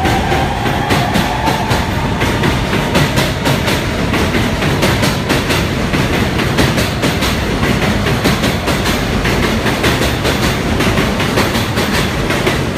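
New York subway R160B car with Siemens AC traction motors running along track: a steady rumble of wheels on rail with rapid clattering clicks from the rail joints. A faint rising motor whine fades out in the first couple of seconds.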